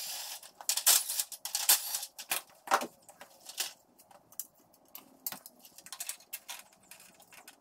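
Irregular clicks and metallic clinks of small metal grille mounting brackets and clips being handled and set down on a plastic grille, busier in the first couple of seconds and sparser after.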